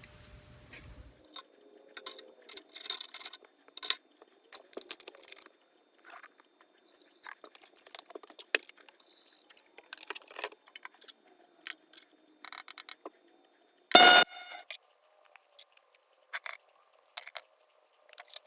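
Small steel sockets and wrench parts clinking and clicking as they are handled and set into an ultrasonic cleaner, with a short electronic beep about three-quarters of the way through.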